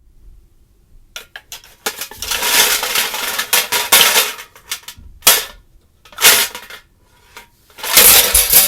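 Homemade foley: a dense clatter of hard objects knocking and clinking together, like dishes or metal, starting about a second in and heaviest over the next few seconds, then several shorter bursts of clatter near the end.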